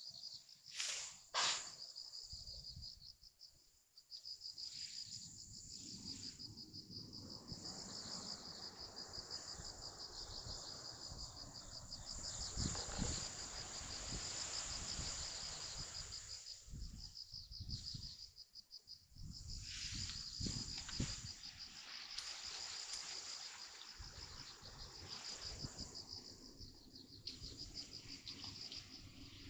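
Insects chirring in a steady high trill, over a low rushing noise that rises and falls. There are a couple of sharp clicks about a second in.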